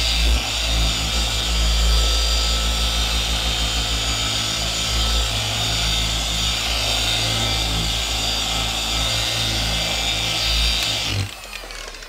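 Rupes machine polisher running steadily with a foam pad on car paint, a polishing pass after compounding; it is switched off about 11 seconds in.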